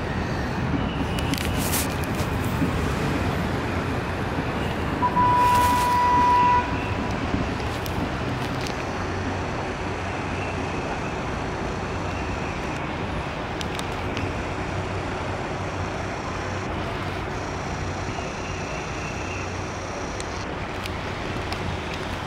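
Steady city traffic noise, with a horn sounding once, a steady tone lasting about a second and a half, about five seconds in.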